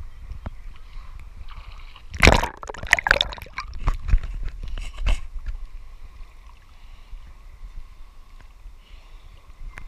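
Sea water sloshing and splashing against a camera held at the waterline, with a run of splashes about two seconds in, the first the loudest, then quieter lapping.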